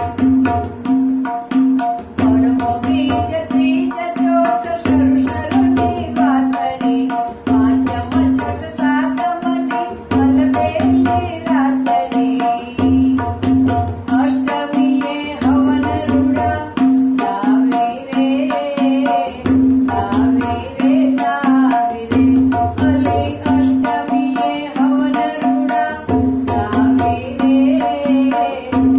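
Tabla keeping a steady, evenly repeating rhythm: the dayan rings at one pitch on every stroke and the bass bayan swells in recurring groups. From about two seconds in, an elderly woman sings a Gujarati garba over it.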